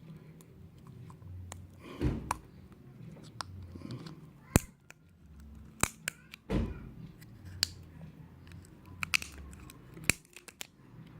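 Plastic bottle cap being pierced and worked with a blade to make a hole: irregular sharp clicks, creaks and scrapes of the plastic, with heavier handling knocks about two seconds in and again about six and a half seconds in.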